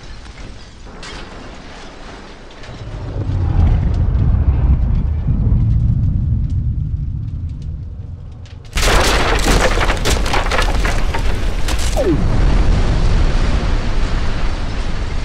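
Large explosion: a deep rumble builds, then about 9 s in a sudden loud blast gives way to the dense, crackling noise of a fireball that lasts to the end.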